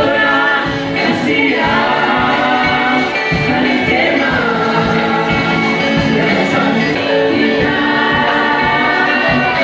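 Gospel choir singing with instrumental accompaniment, steady and unbroken.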